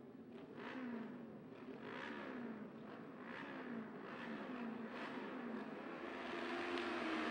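SEAR AR600 auto race motorcycle engines revved again and again at the start line, about one rev a second, each falling away. Near the end the engine note holds and swells as the start nears.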